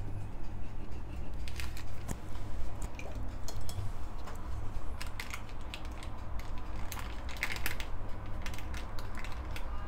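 Knife cutting through a brownie's crisp, crackly top crust, then a metal spatula sliding under the cut piece on parchment paper: a scattered series of small crackles and scrapes over a steady low hum.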